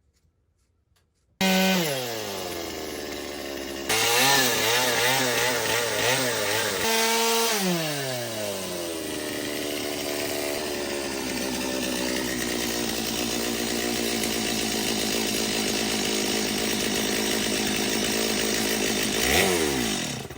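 Chainsaw cutting into wood. Its engine note falls and wavers under load, then holds steady at high speed. The sound starts and stops abruptly.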